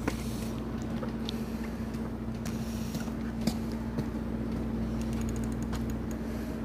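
A steady low engine hum with scattered light clicks. About five seconds in comes a brief, fast run of ticks as the spinning reel's drag gives line to a hooked fish.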